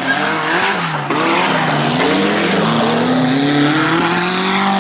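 Off-road racing buggy's engine revving hard: the pitch dips about a second in, then climbs slowly and steadily as it accelerates.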